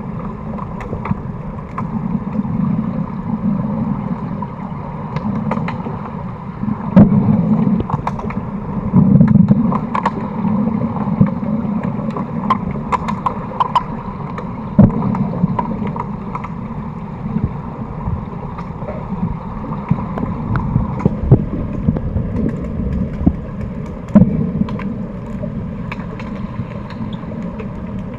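Underwater hockey play heard underwater through the camera housing: a steady, muffled rumble and hiss of the pool water with scattered sharp clicks and knocks, several of them loud.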